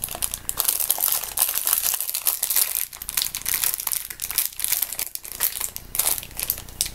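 Plastic candy bag crinkling and crackling as it is pulled and squeezed in an effort to tear it open; a dense, irregular run of sharp crackles.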